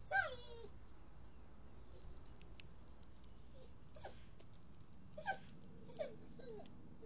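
Short animal calls, each falling in pitch: a loud one just after the start, then three more about four to six seconds in.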